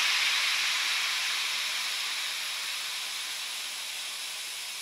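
Air hissing out of a small ride-on mower tire through its valve stem while the leaking valve is being changed, the tire deflating. It is a loud, steady rush that slowly weakens.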